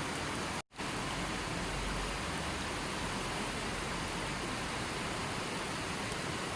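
Steady rushing of water, an even hiss with no distinct drops or tones, broken by a split-second cut to silence under a second in.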